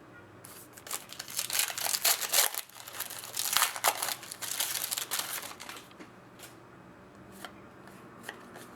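Plastic trading-card pack wrapper crinkling and tearing as it is opened, in two loud bursts in the first half, then a few light clicks of cards being handled.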